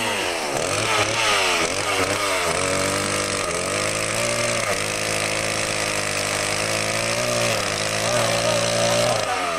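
Two-stroke chainsaw engine revved up and down several times, then held at a steady high speed with two brief dips, and revved up and down again near the end.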